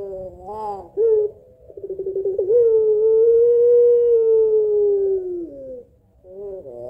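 Puter pelung ringneck dove cooing. A couple of short rising coos are followed by a quick rolling stutter that swells into one long drawn-out coo, held for about three seconds and falling away at the end. Near the end a new call begins with short coos. This long, drawn-out call is the 'suara panjang' prized in this breed.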